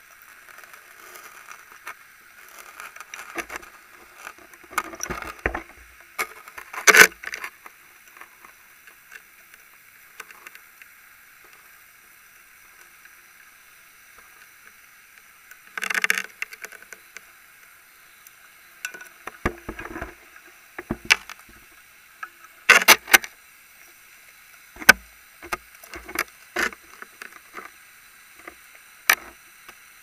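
A scuba diver's breathing heard through an underwater camera housing: irregular bursts of exhaled bubbles rattling and gurgling past, the loudest about seven seconds in and again near the middle-late part, over a faint steady hiss.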